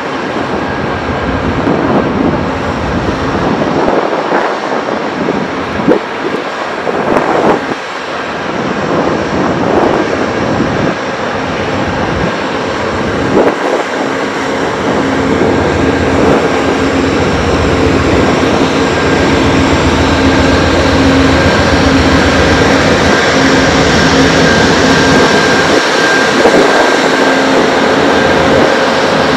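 Amtrak GE Genesis diesel-electric locomotives idling: a loud, steady engine drone with a high whine held on a few steady pitches. It grows a little louder partway through, and a few short thumps fall in the first half.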